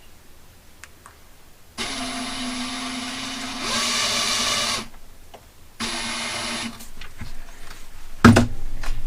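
Small electric power driver with a hex bit running in two bursts on the RC car's chassis screws, a steady motor whine for about three seconds that gets louder partway through, then a second run of under a second. A sharp knock near the end.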